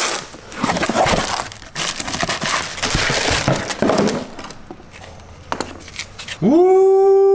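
Cardboard box flaps and plastic bubble wrap crinkling and rustling as a new starter motor is unpacked by hand. Near the end a man gives a long, loud "woo".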